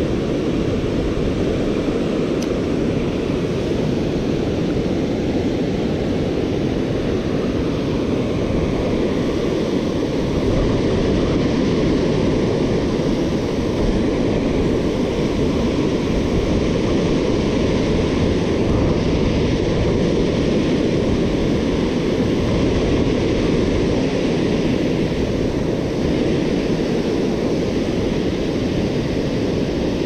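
Steady deep rush of river water pouring over a low-head dam and churning in the whitewater below it.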